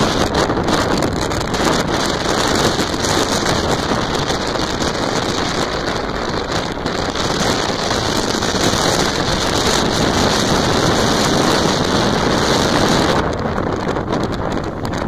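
Strong wind buffeting the microphone, a loud continuous rush with heavy storm surf breaking on the beach beneath it. The high hiss of the wind thins out about thirteen seconds in.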